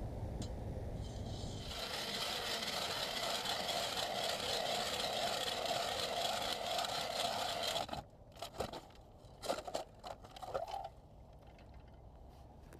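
Ice auger boring through early pond ice: a steady scraping grind of the blades cutting. It stops abruptly about eight seconds in, followed by a few scattered knocks and crunches.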